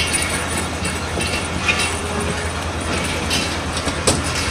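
Passenger coaches of the Millat Express rolling past as the train pulls out: a steady rumble of wheels on rail, broken by sharp clicks, the loudest about four seconds in.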